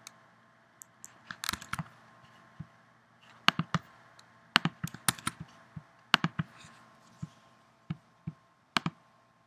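Scattered sharp clicks from a computer mouse and keyboard, several in quick pairs, over a faint steady hum.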